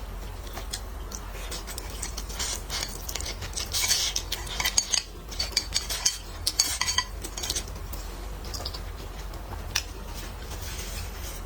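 Eating at the table: utensils clicking and scraping against dishes, with close-miked chewing. The clicks come thickest in the middle.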